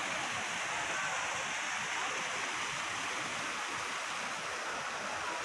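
Steady rushing of water from a man-made rock waterfall, an even hiss with no breaks.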